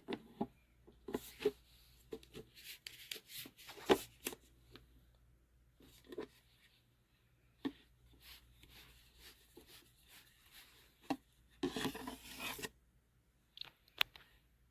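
Handling noises: an irregular run of clicks, taps and short rubbing scrapes, with a denser scraping stretch about twelve seconds in.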